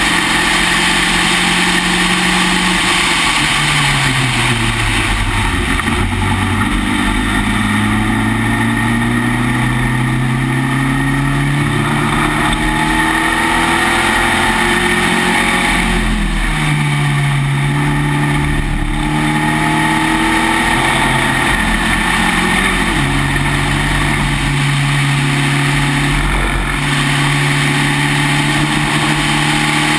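Spec Racer Ford's engine at racing speed, heard onboard over a steady rush of wind. The engine note falls a few seconds in as the car slows, then climbs again and changes pitch several times as it accelerates and shifts.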